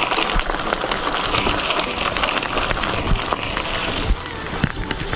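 Mountain bike tyres rolling over a gravel dirt road: a steady crackling rush of loose stones under the tyres, with scattered sharper clicks near the end.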